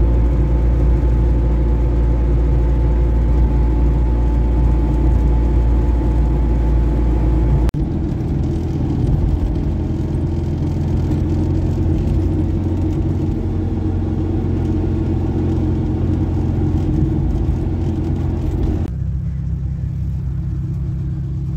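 Fiat 126p's air-cooled two-cylinder engine running while the car is driven, heard from inside the cabin: a loud, steady drone. The sound changes abruptly about eight seconds in and again near the end, where it becomes quieter.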